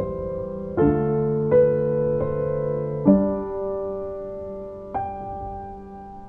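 Background music: slow, gentle solo piano, single notes and chords struck about once a second and left to ring and fade.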